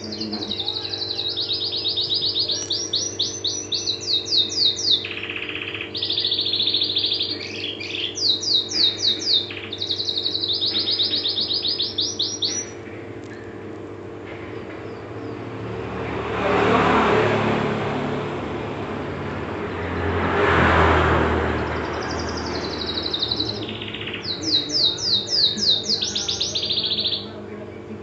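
Domestic canary singing long phrases of fast trills and chattering notes. It falls silent about halfway through while a rushing noise swells and fades twice, then sings again near the end.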